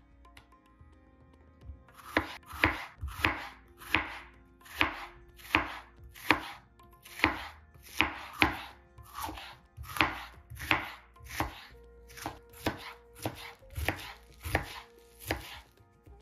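Chef's knife chopping onion on a bamboo cutting board: evenly spaced knocks of the blade on the board, about three every two seconds, starting about two seconds in.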